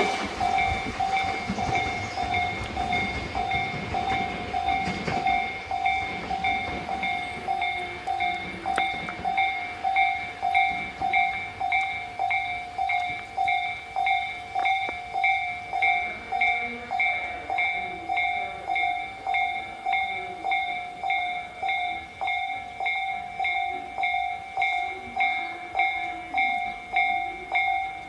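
Japanese level-crossing warning bell ringing on and on in an even ding-ding, about one and a half strikes a second, as the crossing stays closed for passing trains. A passing train's noise fades away in the first two seconds.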